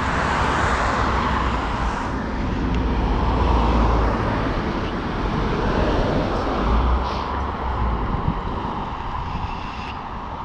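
Cars driving past on the road, a steady rush of tyre and engine noise heard from road level that swells a few times as vehicles go by.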